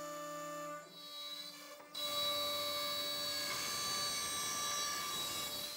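CNC router spindle running at a steady whining pitch while its bit cuts through wood, with a rasping cutting noise. The sound steps up much louder about two seconds in.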